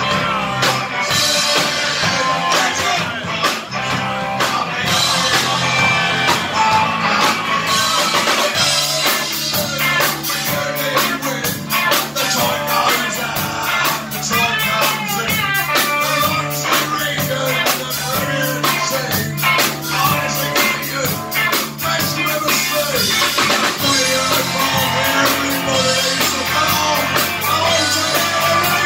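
Live rock band playing loud, with a drum kit, electric bass guitar and electric guitar. The drums and cymbals come in harder and steadier about eight seconds in, over a driving bass line.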